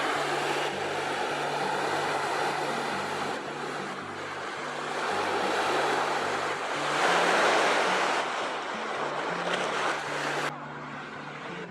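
Ocean surf breaking and washing up the beach, swelling loudest about seven seconds in and cutting off abruptly near the end. Faint background music plays underneath.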